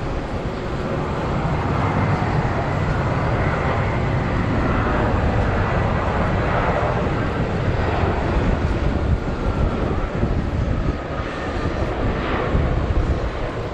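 Jet airliner's engines rumbling as it passes, with a faint whine that slowly falls in pitch.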